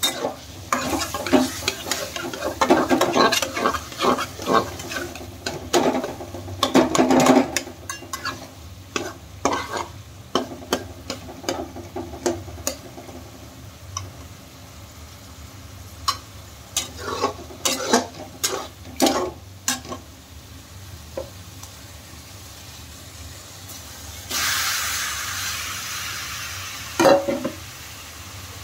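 Flat spatula stirring and scraping diced turnip in a desi-ghee masala in a coated kadhai, in clusters of quick scrape strokes with pauses between. About 24 seconds in a sizzle starts suddenly and slowly fades as more raw turnip pieces go into the hot fat, with a knock against the pan a few seconds later.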